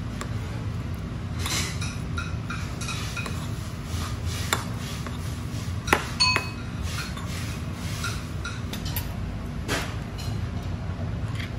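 Metal spoon scraping and clinking against a ceramic rice bowl while rice is stirred and scooped: scattered sharp clinks, one ringing briefly about six seconds in, over a steady low background hum.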